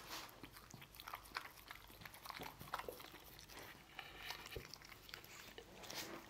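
A dog licking and chewing pieces of stir-fried meat: faint, irregular smacks and crunchy bites.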